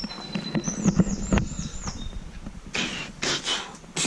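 Small bird chirping in a quick run of short high notes in the first couple of seconds. Alongside it come thuds and scuffs of footsteps, and bursts of rustling in the second half, as of brushing through undergrowth.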